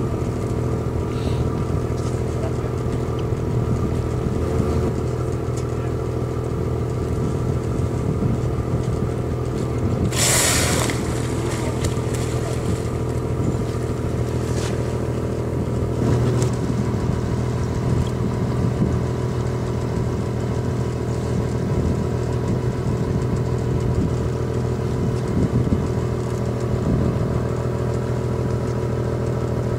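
Whale-watching boat's engine idling steadily alongside a humpback whale. About ten seconds in, the whale blows: one loud, breathy rush of air lasting about a second.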